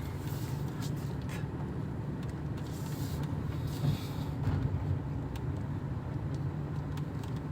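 Car engine and tyre noise heard from inside the cabin, a steady low hum while driving slowly.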